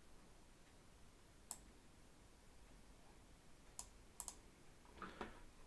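A few faint computer mouse clicks in near silence: one about a second and a half in, then two close together around four seconds.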